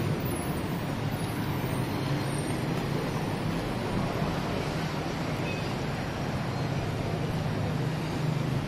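City street traffic: a steady wash of road noise with the low hum of vehicle engines running close by.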